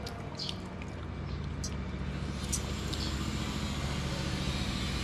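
A motor vehicle's engine running steadily, its hum slowly growing louder over the first few seconds.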